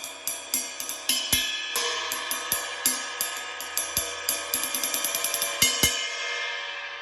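Newly set-up drum-kit cymbals struck one after another in a sound check, each hit ringing on into the next, with a few low drum hits underneath. The hits quicken into a fast flurry about two-thirds of the way in, then stop, and the last cymbal rings out near the end.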